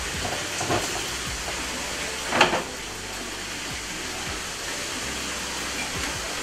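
Water running steadily into a fish-hatchery incubator tank, a constant rushing noise. A brief clatter stands out about two and a half seconds in, with a fainter one near the start.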